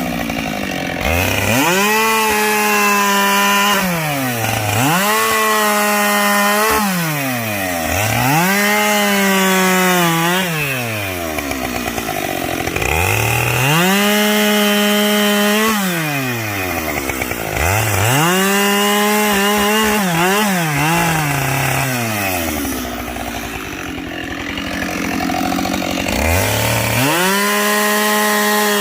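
Two-stroke chainsaw bucking logs: the engine revs up to full speed and holds there for a second or two under load in each cut, then drops back toward idle, about nine times over.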